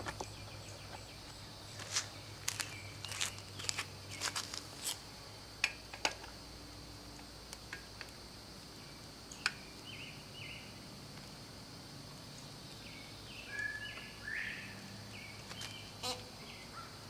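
Scattered light metallic clicks from a bicycle pedal being threaded by hand into an aluminium crank arm, mostly in the first six seconds, with one more near the end. Short bird calls come in from about ten seconds on.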